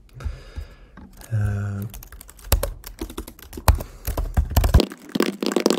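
Typing on a computer keyboard: a quick run of keystrokes that starts about two seconds in and grows denser toward the end.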